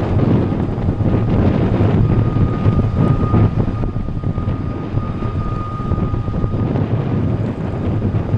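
Wind buffeting the microphone over the steady low rumble of a large tanker docking, with a faint steady whine throughout.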